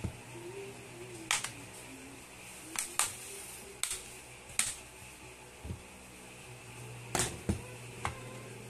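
Pry tool prising the grille sleeve off a JBL Flip 5 Bluetooth speaker: sharp plastic clicks and snaps, about eight at irregular intervals, some in quick pairs.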